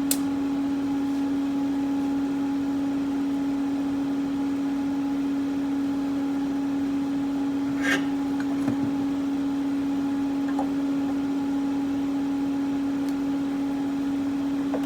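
A steady electrical machine hum at one pitch, with a sharp click at the start and a brief metallic clatter about eight seconds in.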